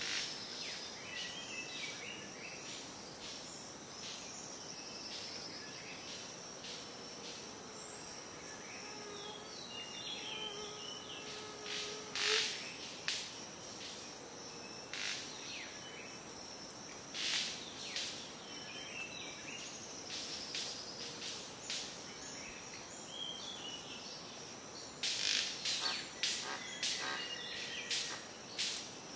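Rainforest ambience: a steady high drone of insects with many short bird calls and chirps scattered through, growing busier near the end.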